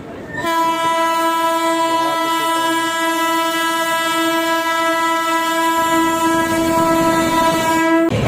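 Indian Railways WAP-7 electric locomotive's horn sounding one long, steady blast of about seven and a half seconds, cutting off suddenly near the end. Under it runs the low rumble of the approaching train.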